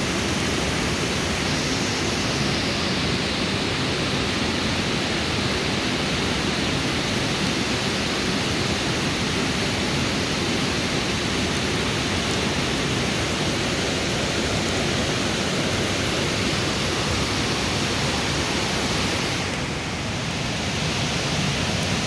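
Steady rush of a river flowing over rocks, an even wash of water noise.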